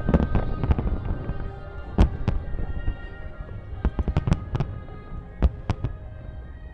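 Fireworks shells bursting in quick, irregular bangs, a cluster at the start, another about four seconds in and single loud ones between, over music.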